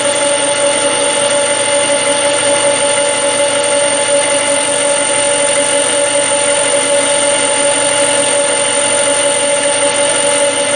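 Metal lathe running steadily under power feed, spindle at about 320 RPM, with its motor and gear drive making a constant hum and a thin high whine.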